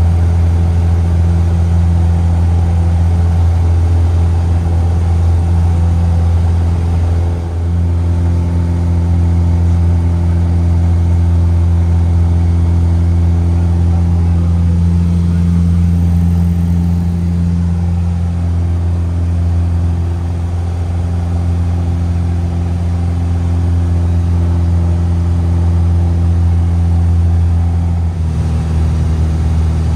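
Piston engine and propeller of a single-engine light aircraft droning steadily, heard from inside the cabin in flight. The drone shifts slightly in tone near the end.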